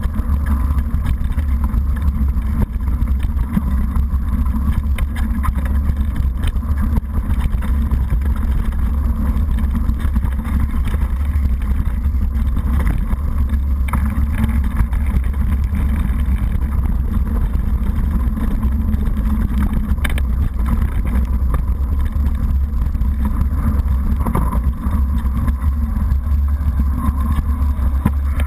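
Mountain bike riding fast over a rough, rocky trail, heard through a GoPro HD 960: a loud, steady low rumble of wind on the microphone and tyre and frame noise, with a few small knocks over the stones.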